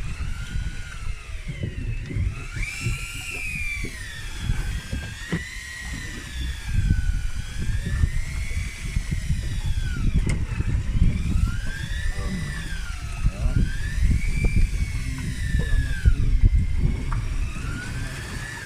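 Outboard motor running with a whine that slowly rises and falls in pitch, over low rumbling wind and water noise.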